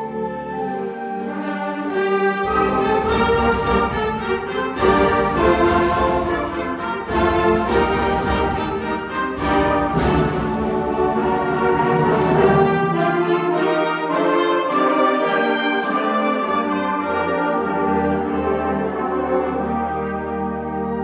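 Live concert band playing, brass prominent, with a run of loud percussion strikes through the middle before it settles into softer held chords.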